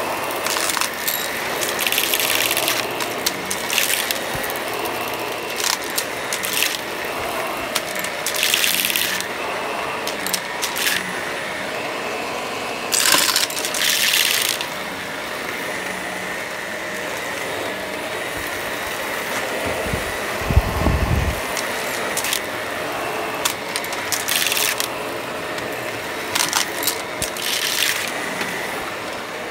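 Shark Professional Lift-Away upright vacuum running steadily on a hard floor, with repeated bursts of rattling and crunching as hard debris is sucked up through it. A dull low thump comes about two-thirds of the way through.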